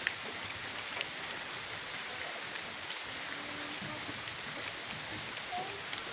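Steady drizzle falling on a small river and the plants along its bank, with a couple of faint clicks near the start.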